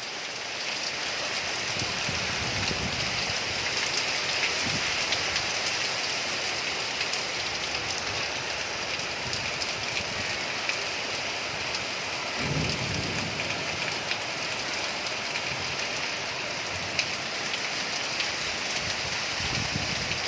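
Heavy rain falling steadily, a dense hiss of drops on surfaces. Low rumbles swell up about two seconds in and again around twelve seconds in.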